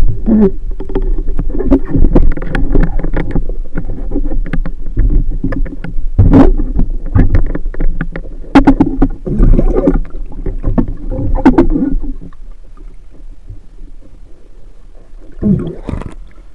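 Muffled underwater rumbling with many dull knocks and clicks, as heard by a camera held underwater by a diving spearfisher. It gets quieter about twelve seconds in, and a short splashy burst near the end marks the camera breaking the surface.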